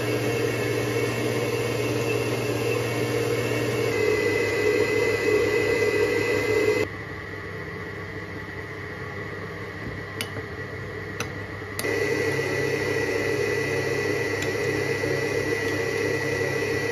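Electric stand mixer running steadily with a constant hum and whine as its beater works butter, sugar and egg yolks in a steel bowl. About seven seconds in it drops away to a quieter stretch with two light clicks of a spoon against a glass bowl, then the mixer runs again from about twelve seconds in, now beating in almond flour.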